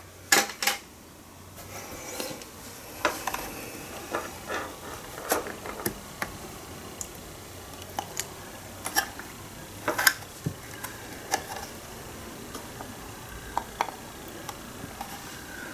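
Scattered light clicks and knocks as the opened cassette deck's wooden case and metal chassis are handled and tilted. The knocks come irregularly, a dozen or so over the stretch.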